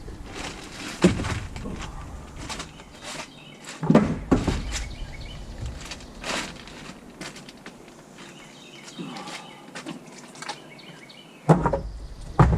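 Footsteps and scattered knocks and thuds as someone moves about handling things, with heavy thumps about four seconds in and twice near the end.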